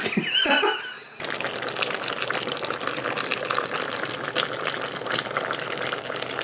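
Pork menudo simmering in a pan, its thick tomato sauce bubbling with a steady crackle of small pops from about a second in.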